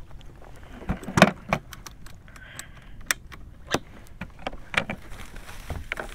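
Irregular clicks, knocks and light rattles of fishing gear being handled on a paddleboard deck, the loudest about a second in.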